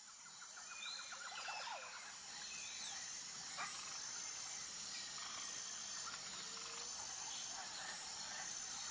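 Faint outdoor nature ambience: scattered short bird chirps and calls, including a rapid trill near the start, over a steady insect-like hiss.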